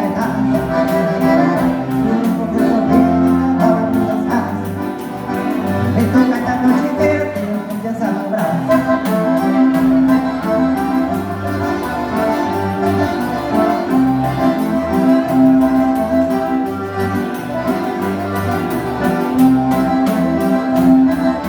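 Live regional dance band playing an instrumental passage led by button accordion (gaita), over a steady repeating bass beat.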